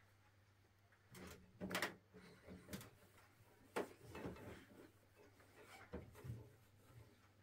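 A cloth wiping and rubbing over a plastic CRT television set, with a few soft knocks and scrapes of handling, loudest a little under two seconds in and again near four seconds. A faint steady low hum runs underneath.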